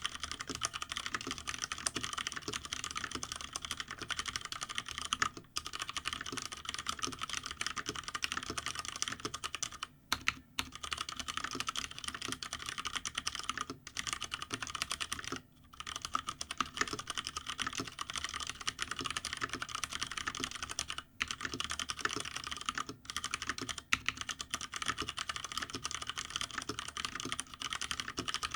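Continuous fast typing on a GTune GK993B SKY mechanical keyboard with stock, unlubed Cherry MX Brown tactile switches, the case sitting on a bare desk without a deskpad. A dense run of key clacks breaks off in a few brief pauses.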